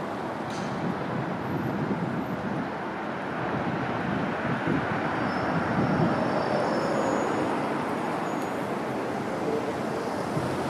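Steady rumble of a fire engine and street traffic as the engine moves off down the street, swelling slightly about halfway through.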